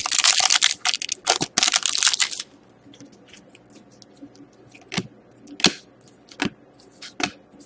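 Foil wrapper of a hockey card pack being torn open, a dense crinkling and tearing for about two and a half seconds, followed by a few sharp light clicks and flicks as the cards are handled.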